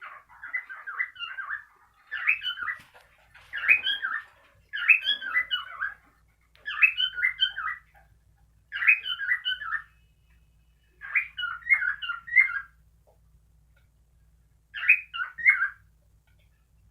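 Cockatiel mating song: short runs of chirping, warbling whistles about a second long, repeated about eight times with short pauses between them.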